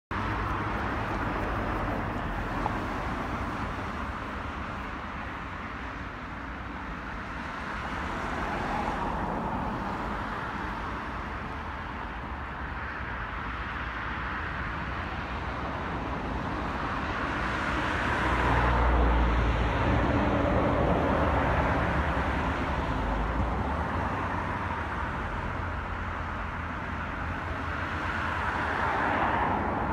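Steady distant road traffic, swelling several times as vehicles pass, loudest with a low rumble about two-thirds of the way through.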